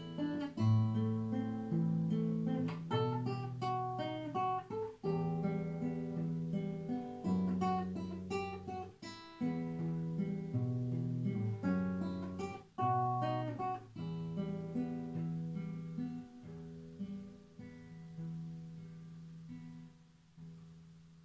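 Solo classical guitar, fingerpicked: a melody over bass notes in the closing bars of a piece. It grows quieter and sparser toward the end and finishes on a last chord left to ring away.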